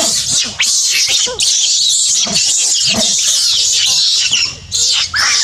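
Baby monkeys screaming and squealing shrilly in a scuffle, one biting another as they wrestle on the ground; the cries come in repeated high, hoarse bursts.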